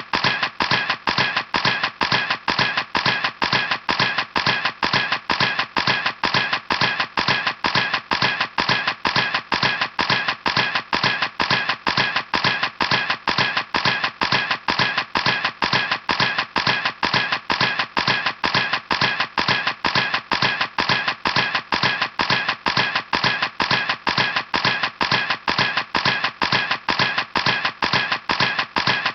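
Camera shutter firing in a continuous burst: sharp, even clicks at about four a second, steady throughout.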